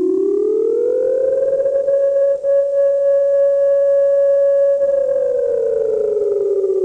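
Emergency warning siren wailing: a single tone rises over about a second, holds steady for about four seconds, then slowly falls in pitch.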